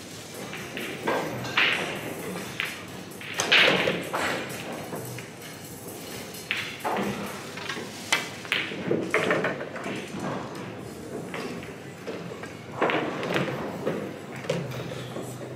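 Pool balls clacking and knocking at irregular moments from play on tables around a large hall, with faint background voices; the loudest clack comes about three and a half seconds in.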